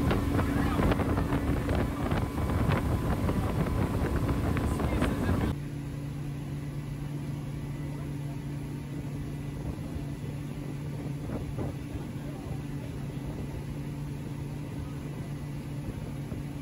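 Speedboat engine running at speed, with wind buffeting the microphone. About five and a half seconds in, the sound drops abruptly to a quieter, steady engine drone.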